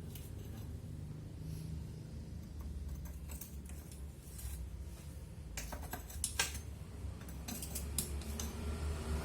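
A few short metal clicks and clinks of hand tools and parts while a Vespa engine is taken apart, over a steady low hum.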